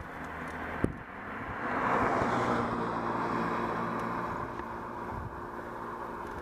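A motor vehicle passing close by on the road: its tyre and engine noise swells about two seconds in and then slowly fades, leaving a steady engine hum. A single sharp click comes about a second in.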